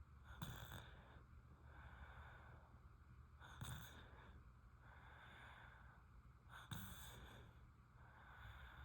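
A sleeping baby snoring quietly: a short, sharp snore about every three seconds, three in all, each followed by a longer soft breath.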